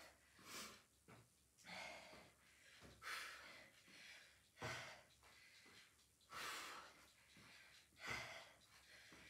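A woman breathing hard with exertion during a bodyweight exercise, faint, about six breaths spaced a second or two apart.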